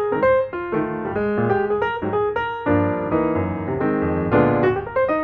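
Background piano music: a steady run of notes over chords, growing fuller a little past halfway.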